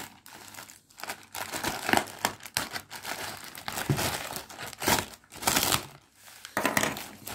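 Plastic poly mailer bag crinkling in irregular bursts as it is handled and opened.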